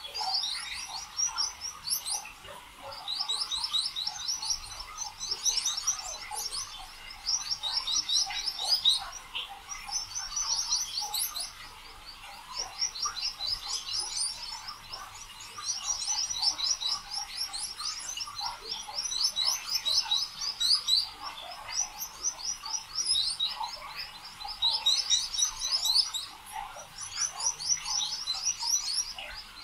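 Small birds chirping in short, high, rapid trills, one phrase every second or two.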